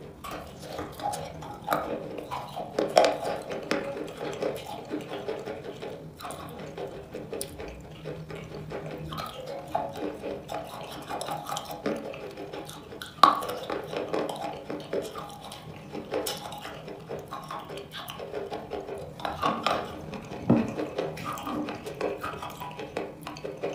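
Close, wet eating sounds of a thick wet chalk and cream paste: lips smacking and sucking the sticky paste off fingers, with many small squelches and clicks and a few sharper ones now and then.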